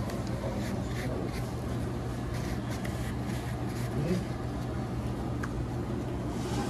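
Restaurant room tone: a steady low hum with faint rustles and light knocks, and a brief faint murmur of voices about four seconds in.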